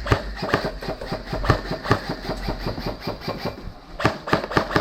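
Airsoft guns firing: sharp clacks come irregularly several times a second, then a faster rapid-fire burst near the end.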